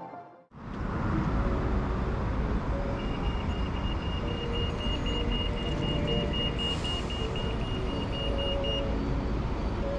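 Road traffic running past, with a pedestrian crossing's signal beeping quickly, about four high pips a second, from about three seconds in until near the end while the green man shows.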